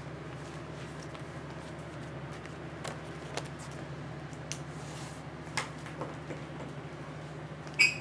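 Steady low hum of room tone, with a few faint, scattered taps.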